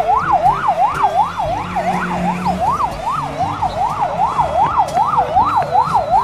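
Police car siren wailing rapidly up and down in a fast, even rise-and-fall cycle, about two to three sweeps a second.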